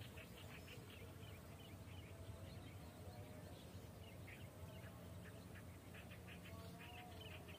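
Near silence with faint, repeated bird chirps in the background.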